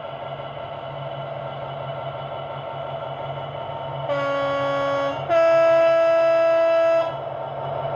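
Class 66 diesel engine sound from a model locomotive's sound decoder speaker, idling steadily, with a two-tone horn about four seconds in: a lower note for about a second, then a higher, louder note for nearly two seconds.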